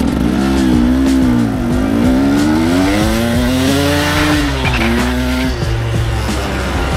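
Dirt bike engine under way, its pitch climbing and dropping several times as the throttle is worked, with a sharp drop about two-thirds of the way in. Background music plays under it.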